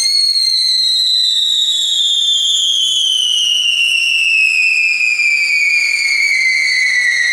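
Firework sun wheel (Pyrotrade W40-silver 'Silber Sonne') spinning and whistling: one unbroken whistle that slowly falls in pitch, over a faint hiss.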